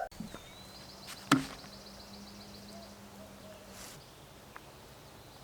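A single sharp knock a little over a second in, against a quiet background with a faint, thin, high warbling tone.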